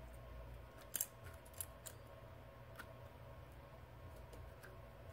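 A few faint, sharp clicks and taps of small plastic phone frame pieces being handled and fitted, the loudest about a second in, over a low steady hum.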